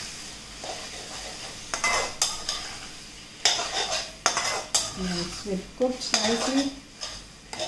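A spatula stirring and scraping thick mutton-and-tomato masala around an aluminium kadai, with several sharp knocks of the spatula against the pan over a steady low sizzle of the frying masala. The tomatoes have fully cooked down and the masala is being roasted (bhuna).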